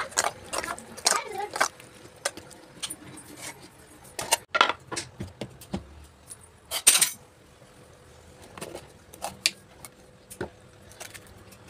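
A spoon clinking and scraping against a steel mixing bowl, then sharp knocks as a coconut is cracked open with a knife, the loudest about seven seconds in.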